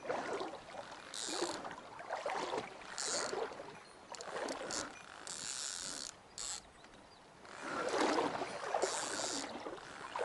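Fishing reel cranked in short, irregular bursts while a hooked fish is played, over stream water. The line is caught on something.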